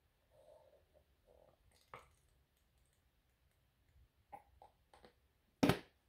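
Gloved hands handling a plastic cup and squeeze bottles of acrylic paint: a few faint rustles and light plastic clicks, then one short, louder sharp click near the end.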